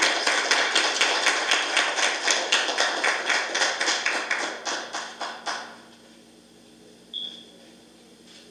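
Applause from a small seated audience, many separate hand claps, dying away about six seconds in.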